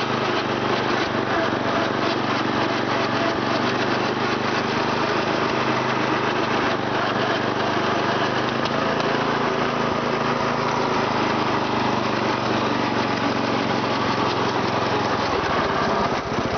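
11 hp Briggs & Stratton engine of a 1981 MTD Lawnflite riding mower running steadily. Its sound gets heavier in the low end near the end.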